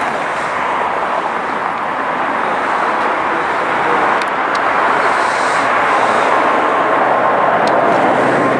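Boeing 747-8's four GEnx-2B turbofan engines at take-off thrust as the jet lifts off and climbs out: a loud, steady jet roar. A steady high tone joins the roar about six seconds in.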